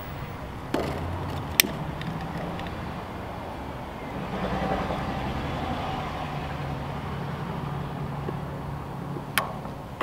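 A long-reach lighter clicking, once sharply about a second and a half in and again near the end, as its flame is held to kindling in a rocket stove firebox. A soft hiss builds from about four seconds in, over a steady low hum.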